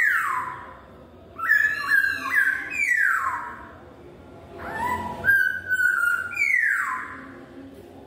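Black-throated laughingthrush (poksay Hongkong) singing loud, clear whistles: three phrases of held and stepped notes, each ending in a long downward slur, with short pauses between them.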